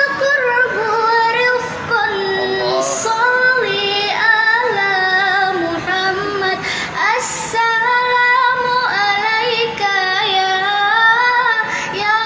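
A high young voice, a girl's or a woman's, singing a long melody with ornamented, wavering held notes over musical accompaniment.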